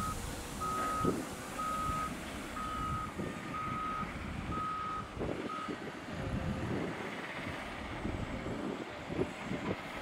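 Caterpillar 972M XE wheel loader's reversing alarm beeping about once a second, six beeps that stop about five and a half seconds in, over the loader's diesel engine running as it backs off a gravel pile.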